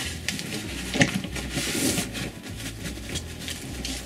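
Handling noise: a doll being settled into a fabric-seated toy buggy and its strap fastened, with cloth and strap rustling and a few light clicks and knocks, the sharpest about a second in.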